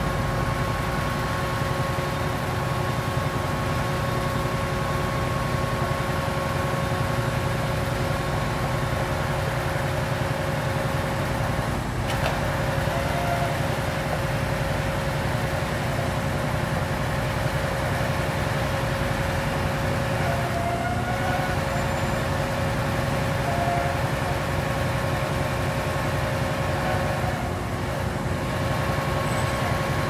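Asphalt-paving train at work: heavy truck diesel engines and road-surfacing machinery running steadily, with a steady high whine over the low engine drone and a single sharp click about twelve seconds in.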